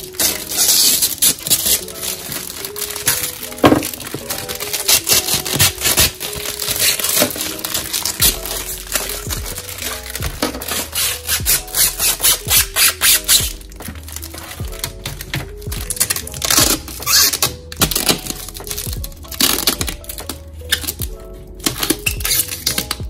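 A clear plastic hard-shell laptop case squeaking and clattering as it is handled and unwrapped, over lo-fi background music with a steady melody.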